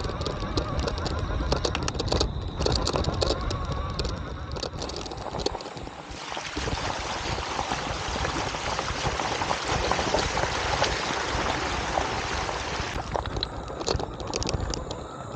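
Fat-tyre e-bike ridden over rough, bumpy ground, its frame and gear rattling and clicking over a low rumble. From about six seconds until about thirteen seconds a steady rush of water as the wheels splash through a shallow creek crossing.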